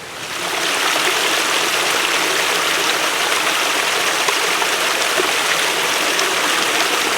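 Rushing water of a mountain stream cascading over rocks: a loud, steady hiss that swells over the first second and then holds.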